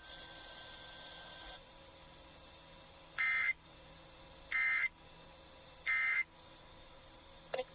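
Emergency Alert System end-of-message data bursts: three short, identical buzzy digital squawks about 1.3 seconds apart, signalling the end of the broadcast tornado warning.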